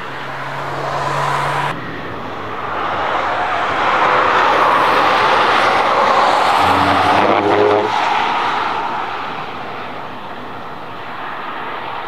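Rimac Nevera electric hypercar passing at speed, heard mostly as a rush of tyre and wind noise that builds, holds for several seconds and fades as it pulls away, with a second car close behind. A brief low hum sounds near the end of the pass.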